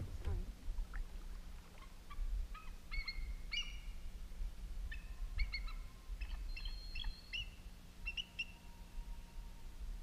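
Bald eagle chattering: runs of short, high piping notes, broken up and repeated over several seconds. A steady low rumble lies underneath.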